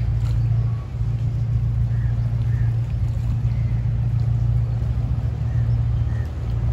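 Bumboat engine running steadily, a deep, even drone that holds without revving.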